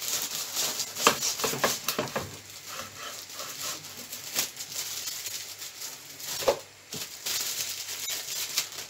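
Plastic bag crinkling and rustling in irregular bursts, with scattered sharp clicks, as bread in the bag is handled with a knife. The rustling is densest in the first couple of seconds and again near the end.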